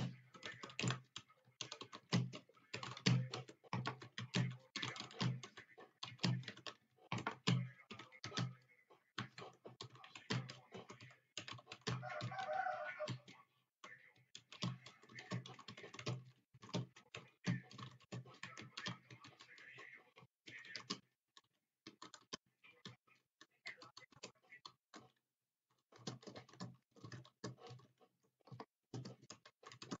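Computer keyboard being typed on fast, a rapid run of key clicks in bursts with short breaks between words, thinning out with a couple of brief pauses in the last third.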